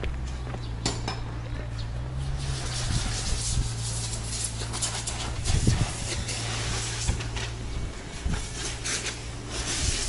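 Rubbing and handling noise on a handheld camera's microphone while walking, with scuffs and scrapes over a steady low hum.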